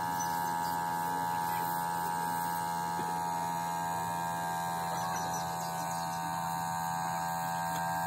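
A steady pitched hum with many overtones, holding one pitch without change.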